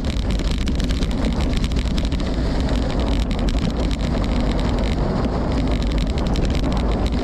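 Wind buffeting the microphone of a camera on a moving gravel bike: a steady, loud rushing rumble, with light rattling ticks throughout.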